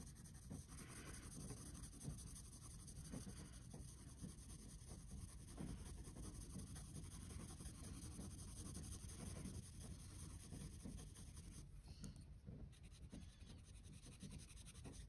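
Faint scratching of a graphite pencil shading on sketchbook paper, in many short, irregular strokes.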